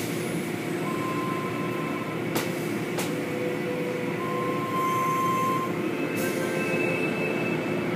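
Automatic tunnel car wash running: a steady wash of water spray and machinery noise, with thin whining tones that come and go. Two sharp clicks sound about two and a half and three seconds in.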